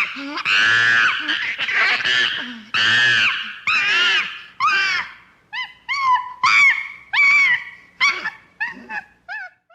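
Ape screams of the chimpanzee kind: several long, harsh shrieks over the first five seconds. These give way to a run of short hoots that rise and fall in pitch, coming quicker and fainter toward the end.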